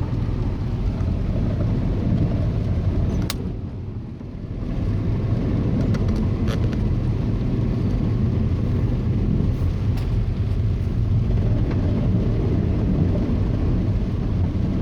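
Car driving, heard from inside: a steady low rumble of engine and road noise that drops off briefly about four seconds in, with a few faint clicks.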